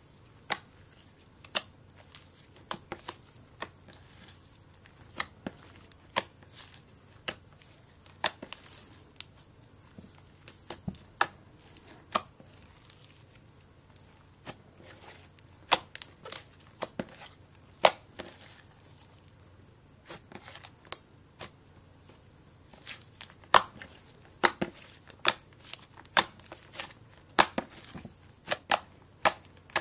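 Slime being kneaded, stretched and pressed by hand as colouring is worked in, giving irregular sharp pops and crackles, coming thicker and faster in the last several seconds.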